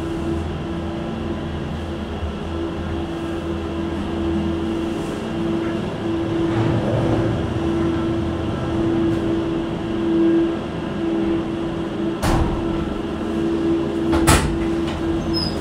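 Disney Skyliner gondola cabin in motion: a steady mechanical hum over a low rumble, with two sharp knocks about two seconds apart near the end.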